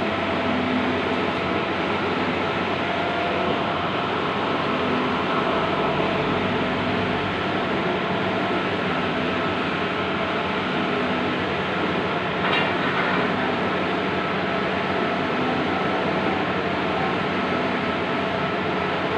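Large-format outdoor banner printer running: a continuous mechanical whir and hum with several steady tones.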